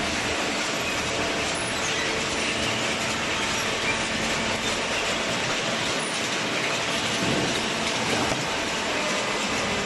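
Machinery running with a steady mechanical clatter and rattle.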